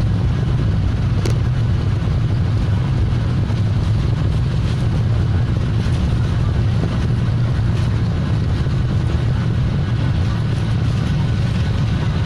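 Airliner during takeoff: a steady, loud low rumble of engines and rushing air that holds level throughout.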